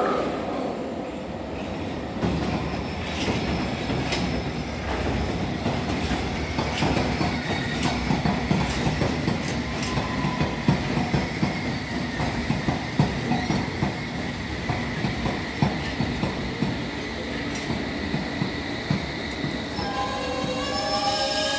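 A London Underground S7 Stock train running along the track, its wheels clacking irregularly over the rail joints, with a faint steady high whine above. Near the end the train's traction motors come in as a whine of several steady tones.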